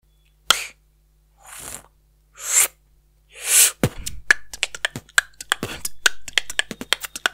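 Human beatboxing into a microphone: four breathy hissing sounds about a second apart, then a fast beat of deep kicks and sharp clicks kicks in just under four seconds in.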